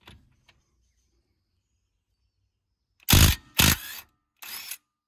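Cordless impact wrench hammering in three short bursts, starting about three seconds in, as it undoes the 30 mm rear hub (axle) nut. The nut comes off easily.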